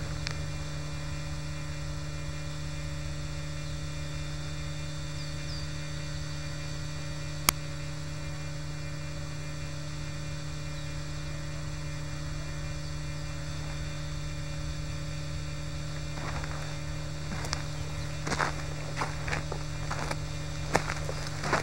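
A steady low electrical-sounding hum with several held tones. There is a single sharp click about seven seconds in. In the last few seconds there is a run of irregular clicks and crunches.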